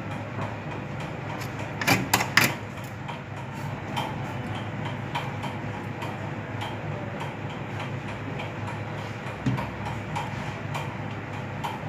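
Steady low background hum of a repair bench, with a quick cluster of sharp clicks about two seconds in and a few fainter ticks, from small tool handling while a jumper wire is soldered to a phone's display connector.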